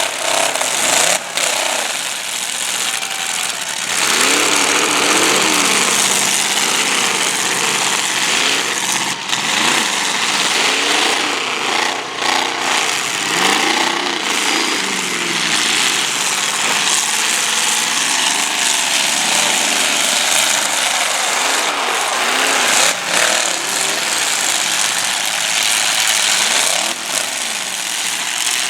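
Several demolition derby cars' engines running hard at once, revving up and down over one another with a loud exhaust roar, and a few sharp bangs of cars hitting.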